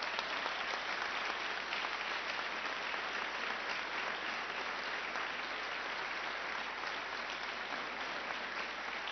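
Applause from an audience: many people clapping at a steady level without letting up.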